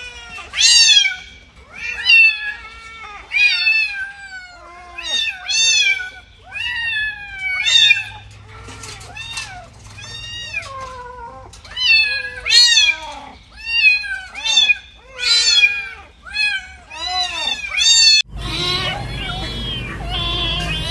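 Kitten meowing over and over: short high-pitched calls that rise and fall in pitch, about one a second. About eighteen seconds in the sound cuts to a louder steady hum with a longer, held call.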